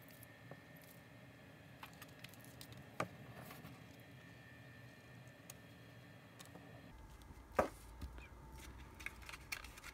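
Faint handling of paper and cardstock on a craft mat: soft rustles and a few small taps and clicks, the loudest about three-quarters of the way through.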